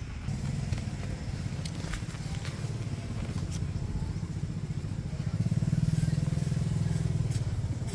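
An engine running steadily with a low hum, getting louder for a couple of seconds from about five seconds in.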